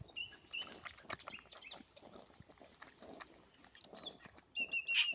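A baby European badger suckling milk from a feeding bottle: quiet, irregular wet sucking and smacking clicks.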